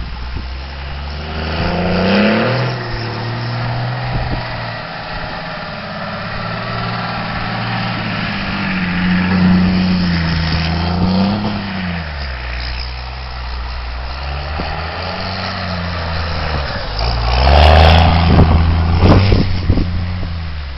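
Cummins diesel engine in a Dodge Ramcharger running under load, its revs rising and falling several times. The loudest surge comes near the end, with some sharp cracks around it.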